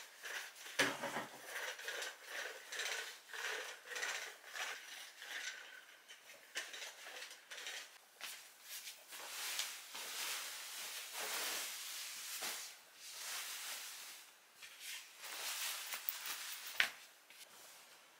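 A long-handled duster rubbing and scraping behind a wooden bed headboard, then cotton bedding rustling and swishing as the duvet is shaken out and smoothed over the bed. There is a sharp knock about a second in and another near the end.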